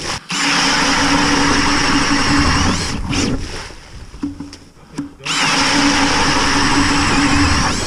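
RIDGID cordless drill spinning an 8-inch StrikeMaster Lite Flight ice auger through lake ice: a steady motor whine with the blades grinding ice. It eases off about three seconds in, spins back up with a rising whine around five seconds, and stops near the end.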